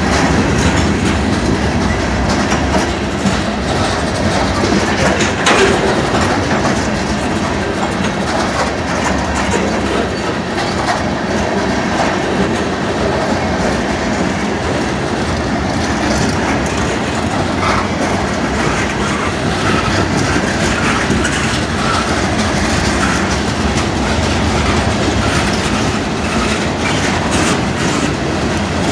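Freight cars of a Florida East Coast Railway manifest train rolling past close by: a steady rumble of wheels on rail with repeated clickety-clack over the rail joints.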